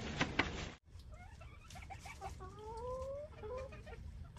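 A hen being held, giving a few short chirps and one drawn-out rising call a couple of seconds in. Two short sharp knocks come just before that, in the first half second.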